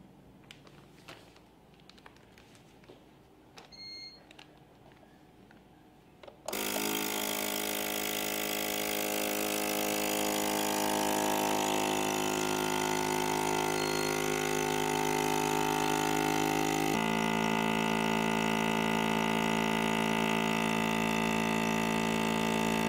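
Small vacuum sealer's 110 W pump motor switches on abruptly about six seconds in and runs steadily, drawing the air out of a bag of meat. Its sound changes about ten seconds after it starts. Before it comes on there are only light clicks from the bag and lid being set, and a short high beep.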